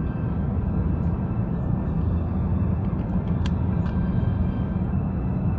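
Steady cabin roar inside an Airbus A350-900 in flight on approach: its Rolls-Royce Trent XWB engines and rushing airflow heard through the fuselage as a deep, even rumble, with a couple of faint ticks midway.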